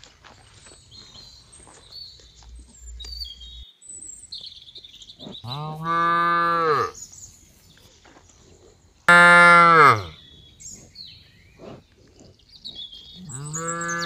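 Cattle mooing: three long moos, each rising and then falling in pitch. The second, about nine seconds in, is the loudest and starts abruptly. The third begins near the end.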